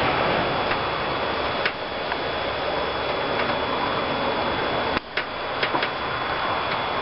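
Wind blowing through concrete roof tiles, heard from inside the attic as a steady rushing hiss. A sharp click comes about two seconds in, and a short cluster of clicks about five seconds in.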